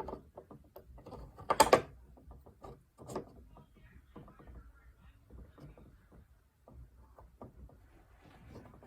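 Scattered light clicks and knocks, with a sharp knock about one and a half seconds in and another about three seconds in.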